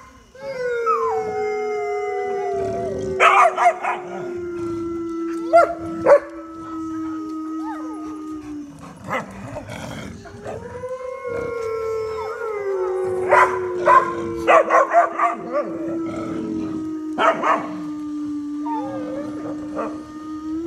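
Several dogs howling together in a chorus. Two long howls each slide slowly down in pitch over several seconds, the second starting about halfway through, with higher voices layered over them and short yips and barks breaking in a few times.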